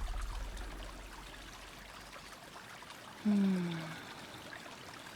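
A low drone fading away over the first two seconds or so, then a short voice-like hum falling in pitch about three seconds in, over a faint steady hiss.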